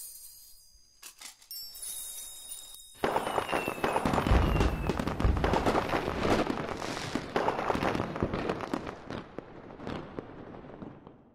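Fireworks going off: a few scattered pops, then from about three seconds in a dense barrage of bangs and crackles that slowly thins and fades out near the end.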